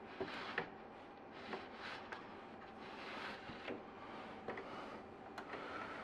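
Faint scraping with a scattering of small clicks and soft knocks as the chest freezer's thermostat temperature probe is slid by hand out of its plastic tube.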